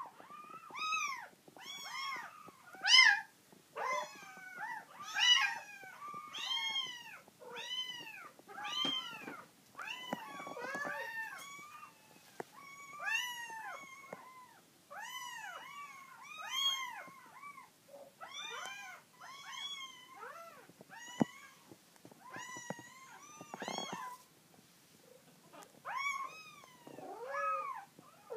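Three-week-old colourpoint kittens mewing over and over: short, high calls that rise and fall in pitch, about one or two a second, sometimes overlapping.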